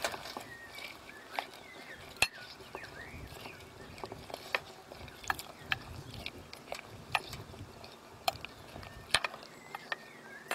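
Plastic ladle stirring beans and broth in a clay pot. It knocks and scrapes against the clay in irregular clicks, about one or two a second, with the loudest knock about two seconds in.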